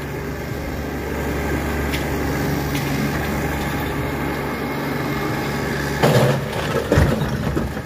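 Compact farm tractor engine running steadily under load as the tractor backs away from the demolition, with two louder, sudden knocks near the end.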